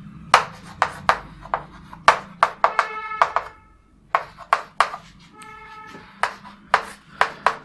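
Chalk writing on a chalkboard: a run of sharp taps and scratches as symbols are written, with a brief squeak about three seconds in and another about five and a half seconds in.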